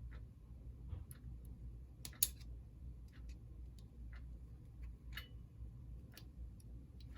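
Faint, scattered clicks and taps of small model-locomotive parts being handled and pressed into place, over a low steady hum.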